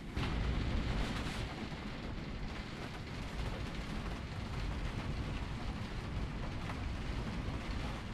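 Heavy rain drumming on a camper van's roof, heard from inside: a dense, steady patter over a deep continuous rumble.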